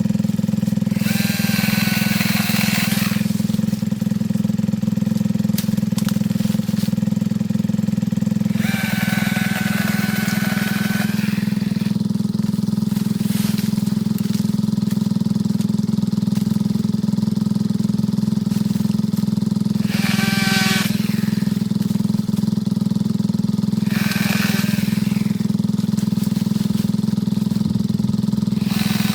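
Ryobi 18-volt cordless chainsaw running steadily at full speed, its chain biting into limbs several times, each cut adding a brief higher-pitched whine over the steady running.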